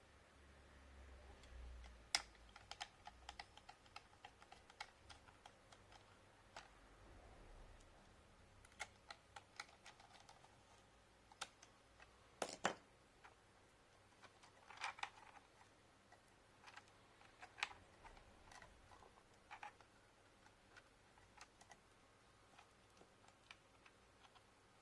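Faint, irregular small clicks and taps of a screwdriver and screws on a laptop's internals as the heatsink is screwed down, with a sharper click about twelve seconds in.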